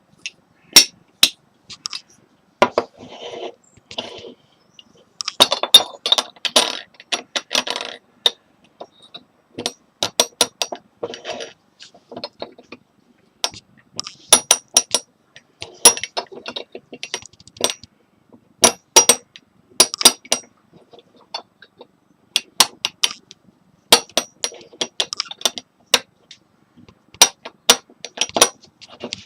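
A teapot being handled: many irregular sharp clinks of china or glass, with short scraping rubs in between in places.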